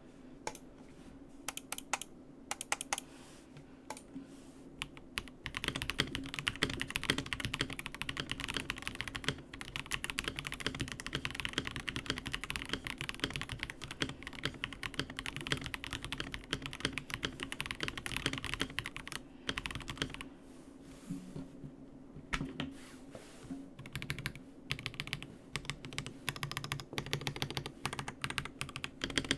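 Typing on an Akko 5075S gasket-mounted mechanical keyboard with stock Akko CS Crystal switches. A few separate keystrokes at first, then fast continuous typing from about five seconds in, a short pause about two-thirds of the way through, and the typing starts again.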